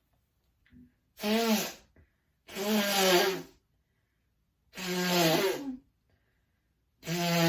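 A woman sneezing in a fit: three full voiced sneezes about a second or two apart, and a fourth starting just before the end.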